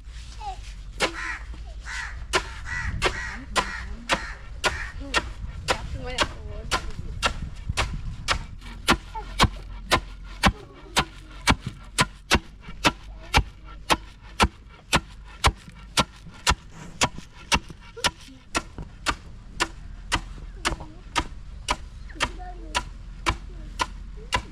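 Knife chopping on a wooden board: a steady run of sharp knocks at about two a second, stronger after the first few seconds.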